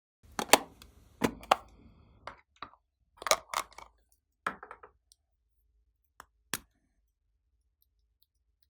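Glossy slime being handled, giving a run of sharp, irregular sticky clicks and pops in little clusters over the first six and a half seconds.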